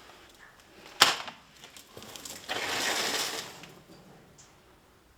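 Workshop handling noises: a sharp click about a second in, then a rustling scrape lasting about a second.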